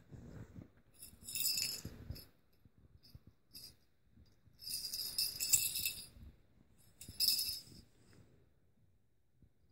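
A small bell inside a plastic cat toy ball jingling as the cat paws and rolls it, in three bursts: one about a second in, a longer, louder one around the middle, and a short one near the end.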